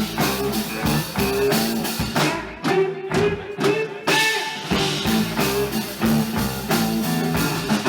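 Live blues-rock band playing an instrumental passage on guitar and drum kit.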